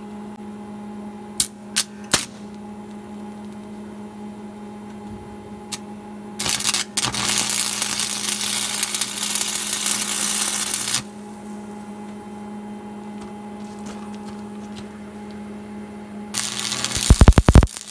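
Arc welding with a 6011 stick electrode at 90 amps: a few light ticks as the rod is struck, then about four and a half seconds of loud, steady arc crackle and sizzle over a constant electrical hum. Near the end a second burst of arc crackle starts, broken by several sharp knocks.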